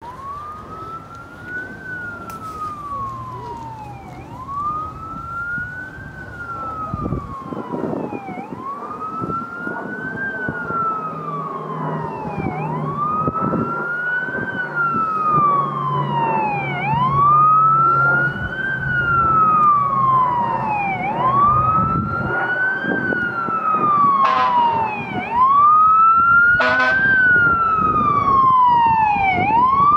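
Fire engine siren on a slow wail, rising and falling about every four seconds and getting louder as the 2018 Spartan Metro Star pumper approaches. Two short blasts cut in near the end.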